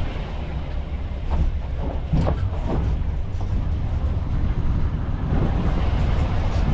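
A moving pickup truck heard from its open back: steady low rumble of engine, road and wind buffeting, with a few short knocks and rattles between one and three seconds in.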